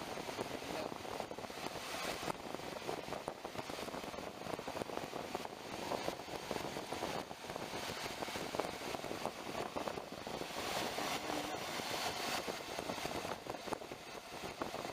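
Ford 3.0-litre Vulcan V6 in a 2007 Mazda B3000 running with a misfire. Spark plug wires are pulled off two cylinders without the idle changing and with no snap of spark, because a faulty engine computer is not firing that coil.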